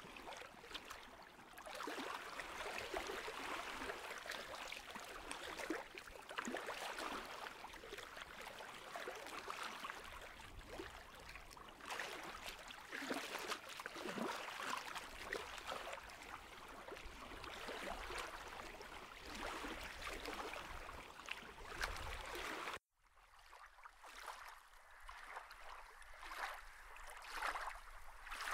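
Running water, a steady flickering rush like a stream. About 23 s in it cuts off abruptly and resumes quieter and thinner.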